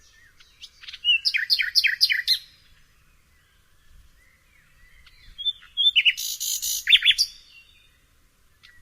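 Nightingale singing in separate phrases with pauses between: a rapid run of repeated notes about a second in, then a harsh buzzy trill followed by loud repeated notes near six seconds.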